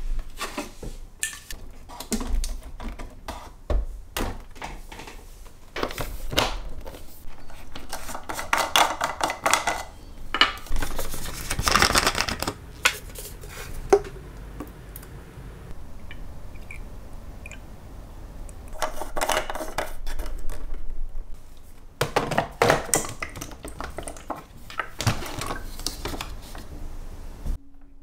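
Small objects being handled at close range: many light clicks, taps and clatters, with a few busier stretches of rustling and knocking.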